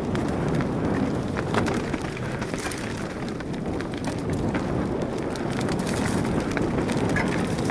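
Mountain bike rolling downhill on a dirt forest trail: tyres running over dry leaves and twigs with a continuous rumble, and frequent small clicks and rattles as the bike goes over bumps.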